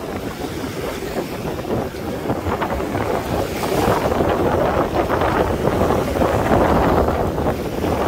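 Surf washing onto the beach with wind rumbling on the microphone; the wash swells louder about halfway through.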